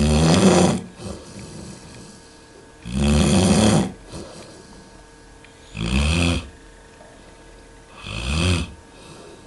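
Dog snoring in its sleep: four rasping snores, one every two and a half to three seconds.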